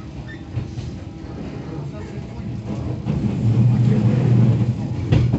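JR West 117 series electric train pulling away, heard from inside the passenger car: the low running rumble builds up about three seconds in as it picks up speed. A sharp knock comes near the end, wheels over a rail joint.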